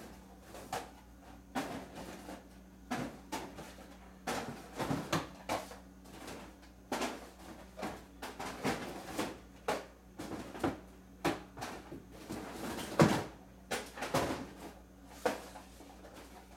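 Someone handling and rummaging through objects, heard as scattered knocks, clicks and rustles, with one louder knock about 13 seconds in, over a faint steady hum.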